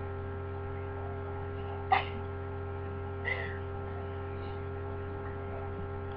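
Steady electrical mains hum on the recording, with one short sharp noise about two seconds in and a softer brief one a little after three seconds.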